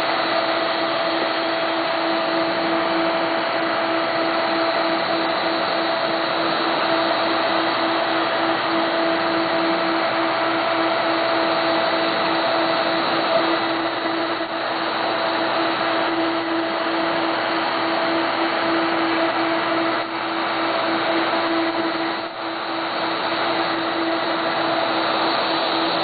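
Home-built CNC machine running at a 90 inches-per-minute feed: a steady mechanical whine over a constant rushing noise, dipping briefly a few times.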